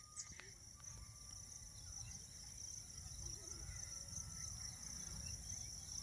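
Faint open-field ambience: a steady, high insect drone, with a low rumble on the microphone building after about a second and a couple of faint thin whistles early on.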